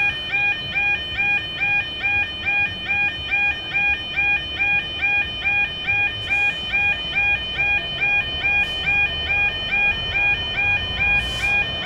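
Level crossing warning alarm sounding, a pulsing tone repeating evenly about one and a half times a second, with a low rumble building near the end.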